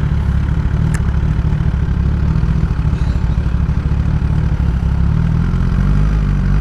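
Kawasaki ZX-10R's inline-four engine with a Graves race exhaust idling steadily, with a short click about a second in.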